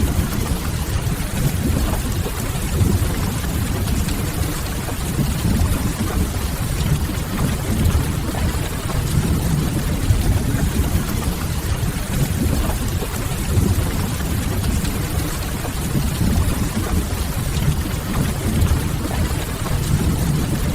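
Steady rain on window glass over a continuous deep low rumble, an unchanging rain-and-fireplace ambience bed.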